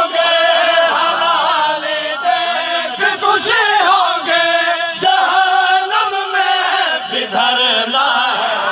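A noha, a Shia lament, chanted in Urdu by a lead reciter on a microphone, with a group of men chanting along in unison. The voices come through a loudspeaker PA and do not pause.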